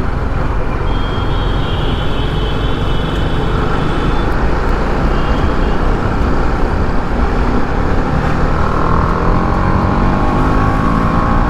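TVS Apache RR310's single-cylinder engine running through its stock exhaust at highway speed, under heavy wind rush on the microphone. In the last few seconds the engine note rises steadily as the bike accelerates.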